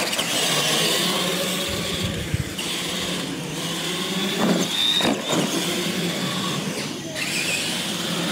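Radio-controlled monster trucks racing on concrete, their electric motors and gears whining up and down in pitch as they accelerate. A couple of short thumps come about halfway through.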